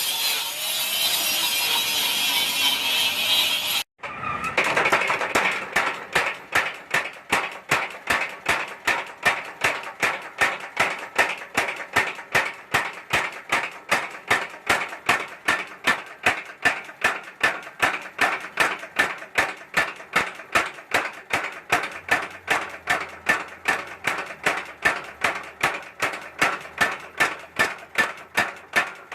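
Steady, evenly paced hammer blows on hot steel over an anvil, forging a knife blade, about three strikes a second. They follow about four seconds of a dense hissing sound that stops abruptly.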